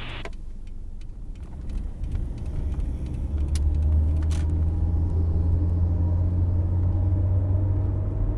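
A car running, a steady low rumble that grows louder about two seconds in, with two short clicks near the middle.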